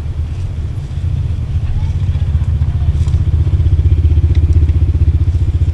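Motorcycle engine running with a fast, even pulsing beat, getting louder over the first few seconds.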